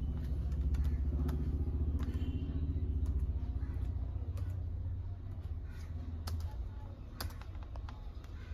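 Low rumble of passing motor traffic that swells in the first second and fades after about four seconds, with a few light clicks of laptop keys being typed.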